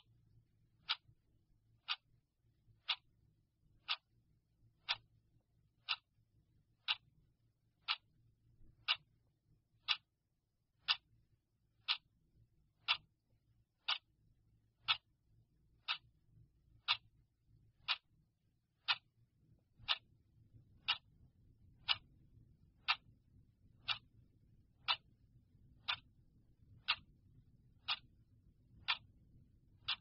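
Clock ticking steadily, one sharp tick a second.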